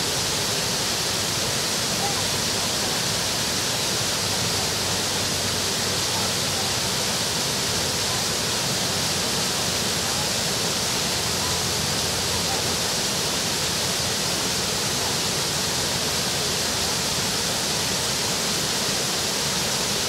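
Small waterfall on Multnomah Creek pouring over rock into a pool: a steady, even rush of falling water that never changes.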